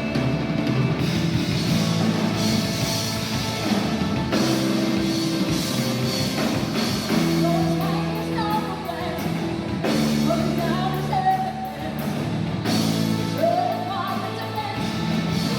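Rock music with a sung vocal over electric guitar and drums; the singing comes in more clearly about halfway through.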